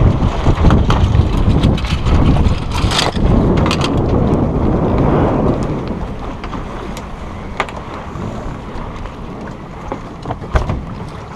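Wind buffeting the microphone and water rushing along the hull of a small sailboat as it comes about, loud for the first half and easing off after about five seconds. Scattered clicks and knocks from the lines and deck gear are heard as the sheets are worked.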